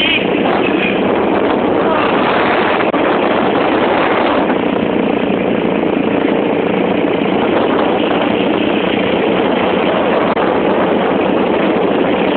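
Yamaha X1 motorcycle on the move, its engine running steadily under a constant rush of wind on the microphone.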